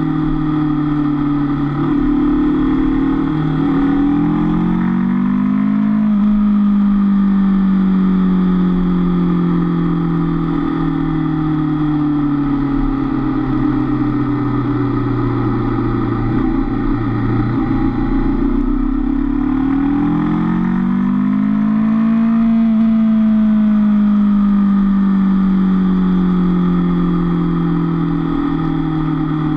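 Honda CB500F parallel-twin engine heard on board while riding, its revs rising twice (a few seconds in and again about two-thirds through) and falling away slowly in between, over steady wind and road noise.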